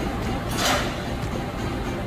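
Diesel locomotive idling with a steady low rumble. About half a second in, there is a short hiss of air at the coupler.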